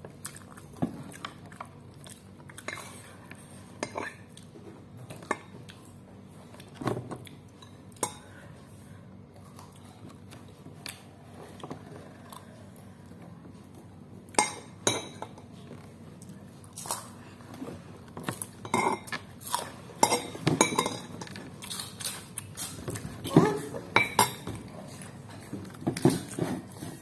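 Metal spoon clinking and scraping against a bowl while eating: scattered sharp clinks, sparse at first and coming more often from about halfway through.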